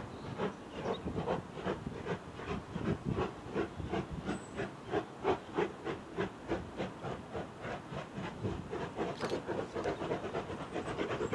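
Two steam locomotives double-heading a passenger train, working hard with a steady, rhythmic exhaust beat of about four chuffs a second.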